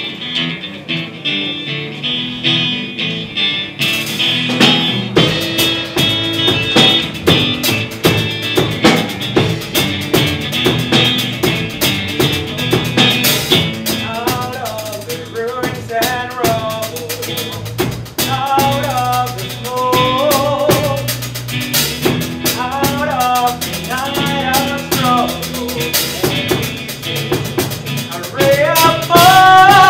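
A song with band accompaniment: strummed guitar at first, a drum kit coming in about four seconds in, then a male voice singing over it from about halfway, ending on a long held note that climbs near the end.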